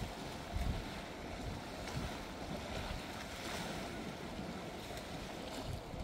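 Seaside ambience: wind buffeting the microphone in irregular low gusts over a steady wash of sea and wind noise.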